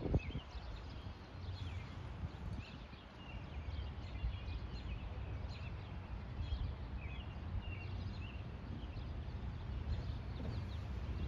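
Small birds chirping in short, irregular calls over a low, steady background rumble.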